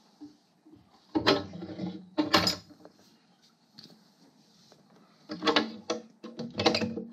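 A small window being worked by hand by its metal stay arm, with scraping, creaking strokes of the stay and frame: two about a second and two seconds in, and two more near the end.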